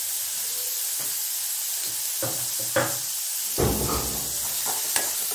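Chopped shallots sizzling in oil in a metal kadai, with a steel spoon scraping and knocking against the pan as they are stirred; the loudest knocks come about two thirds of the way in.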